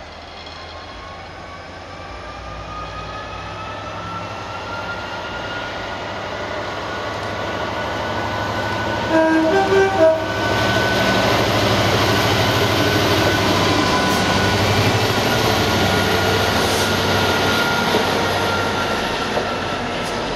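GB Railfreight Class 66 diesel-electric locomotive approaching and passing, its engine growing steadily louder, with a few short blasts of its horn about halfway through.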